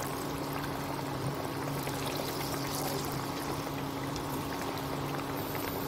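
Chana dal vadas sizzling steadily in hot deep-frying oil, with a steady low hum underneath.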